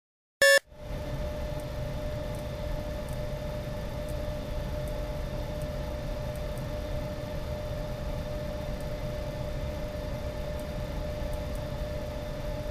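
A short electronic beep about half a second in, then a steady whirring hum with one constant tone held under it.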